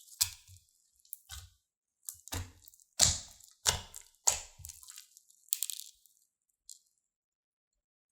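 Crunchy slime being squeezed and pressed by hand, crackling in about eight short bursts that stop about six seconds in.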